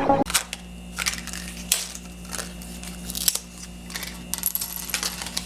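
Small metal overall buttons and buckles clicking and clinking against each other and a work surface as they are handled: a string of irregular sharp clicks, some with a faint ring.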